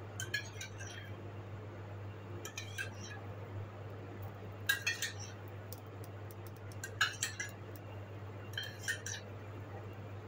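Metal spoon clinking against a small steel bowl in five short bouts, about every two seconds, as liquid food colour is scooped and drizzled, over a steady low hum.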